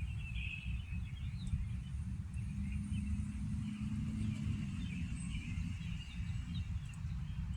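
Outdoor ambience: small birds chirping over a steady low rumble.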